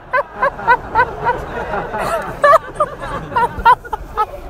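A person in a cinema audience laughing hard: a rapid string of short 'ha' bursts, about three or four a second, with louder peaks near the middle and toward the end.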